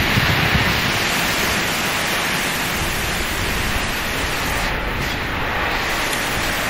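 Wind on a phone's microphone: a steady rushing hiss with a low, uneven buffeting underneath.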